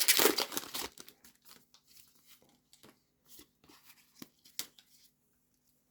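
Foil wrapper of a Pokémon TCG booster pack crinkling as it is torn open, loudest for about the first second. It is followed by scattered soft clicks and taps of cards being handled.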